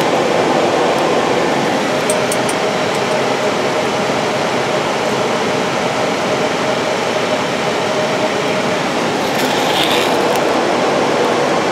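Steady rush of airflow and engine noise on an airliner flight deck on final approach, with the landing gear down, under a faint steady hum. A brief hiss comes about nine and a half seconds in.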